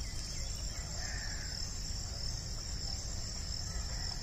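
Steady high-pitched chirring of insects in a continuous chorus, over a low steady rumble.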